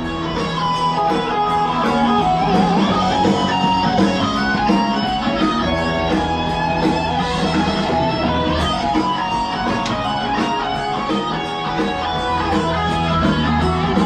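Guitar-led music with a steady beat.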